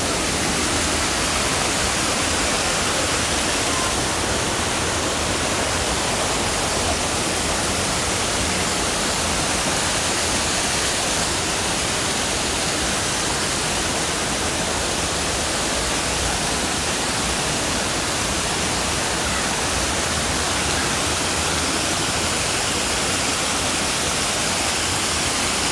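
Waterfall cascade pouring, a steady, even rush of falling water with no change in level.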